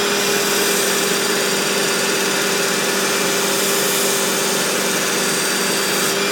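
Work Sharp Ken Onion Edition Mk II belt sharpener running steadily with its blade grinding attachment, a constant motor hum and belt hiss.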